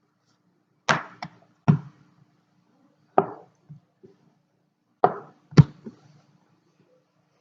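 Rolling pin knocking against a board while dough is rolled out: about eight sharp knocks in irregular clusters.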